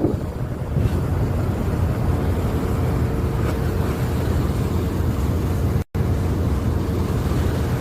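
Steady, loud low rumble of wind and sea heard from on board a ship, with a faint steady hum underneath. The sound cuts out for an instant about six seconds in.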